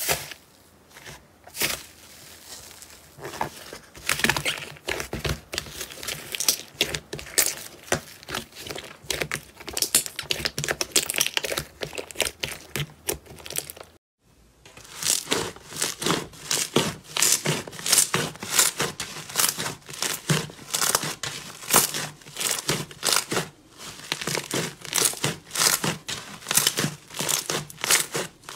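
Hands squeezing and pressing slime: dense, irregular crackling and crinkling clicks. The clicks break off briefly about halfway through, then carry on as a second, glossy slime is stretched and pressed.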